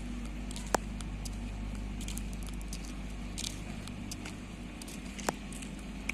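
Steady low hum of idling diesel machinery, with three short sharp clicks, the first about a second in and the last two near the end.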